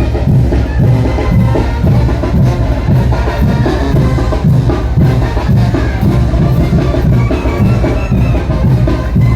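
Mexican brass band playing a son de chinelo: brass carry the tune over a steady drum beat of about two strokes a second.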